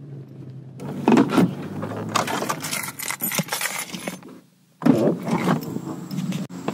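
Clicks and rattles of a phone camera being handled and moved around inside a car, briefly dropping away about four and a half seconds in before the clatter resumes.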